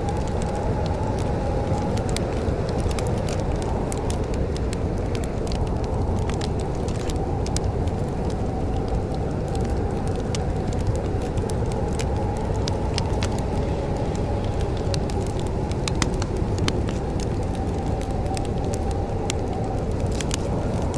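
Wood fire crackling in a fireplace, with frequent small sharp pops over a steady low rumble and a faint wavering whistle-like tone.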